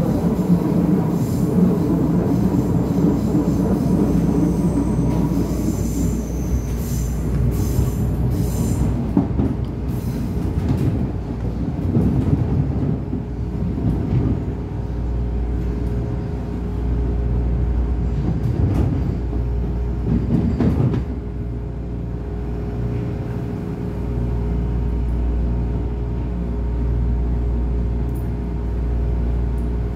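Electric train running slowly, with high wheel squeal over the first several seconds and a steady low rumble and hum throughout. Several sharp clunks come between about ten and twenty seconds in.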